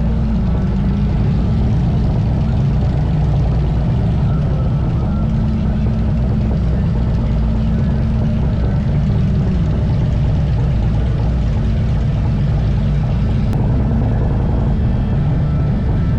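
Harley-Davidson V-twin motorcycle engine running steadily under way, a constant low drone with road noise.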